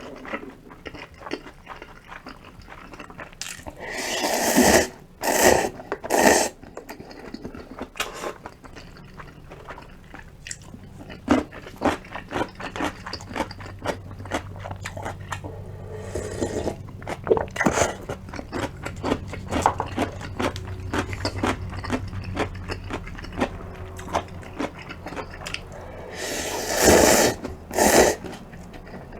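Close-miked eating: chewing and crunching of cup ramen, rice balls and kkakdugi radish kimchi, with many small mouth clicks. A few louder noisy bursts come about four to six seconds in and again near the end.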